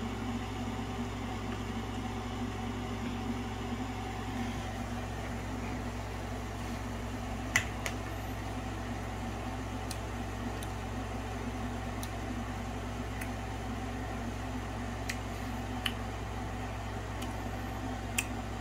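Steady low room hum, like a running fan or appliance, with a few faint, sharp clicks, the loudest about seven seconds in.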